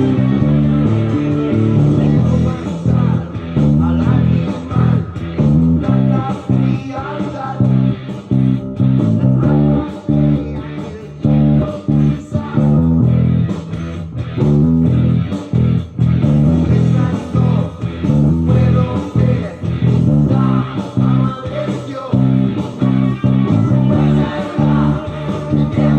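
Electric bass guitar playing a repeating riff of low, stepped notes inside a full music track with guitar.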